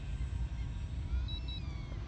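Wind rumbling on the microphone, with the faint high whine of a small twin-motor electric RC plane rising and falling in pitch about halfway through.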